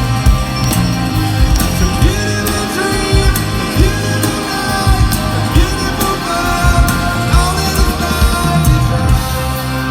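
Rock band playing live: a steady drum beat under sustained guitar and keyboard chords, with a melody line bending in pitch.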